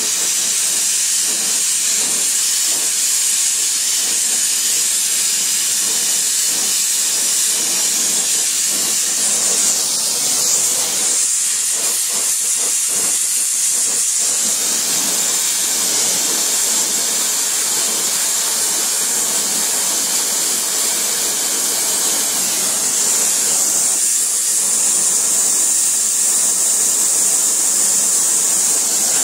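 Gas brazing torch flame hissing steadily as it heats a copper pipe joint for brazing, with some crackling about halfway through.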